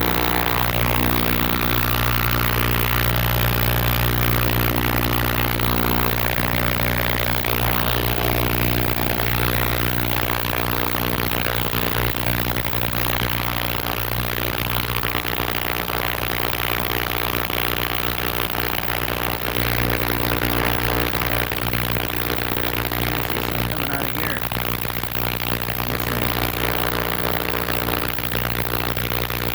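Ultrasonic cleaner running, a steady loud hum with a hiss over it, as it works gum out of a blocked Briggs and Stratton carburetor main jet.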